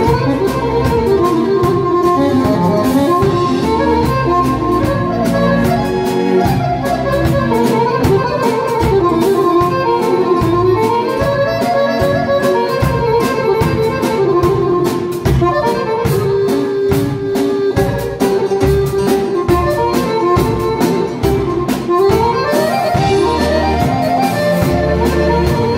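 Chromatic button accordion playing a fast, busy melody over a steady beat, with quick rising runs of notes about ten seconds in and again near the end.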